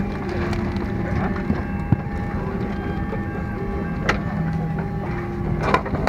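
Steady hum inside an airliner cabin, with a low murmur of passengers. Sharp clicks and knocks come about two seconds in and again near four seconds, as overhead bins are opened and bags handled.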